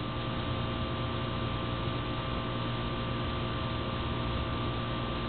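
Steady hum with a background hiss, unchanging throughout, with no distinct events.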